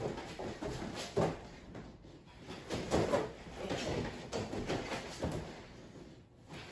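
Irregular thumps of hands and feet landing on folding foam exercise mats as two people do burpees, about one every second or so.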